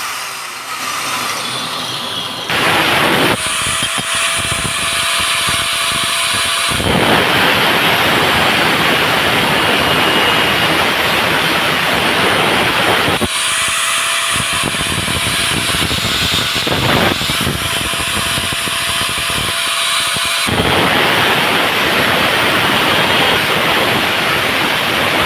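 Welding on stainless steel: a continuous loud crackling, hissing arc noise that changes character abruptly several times.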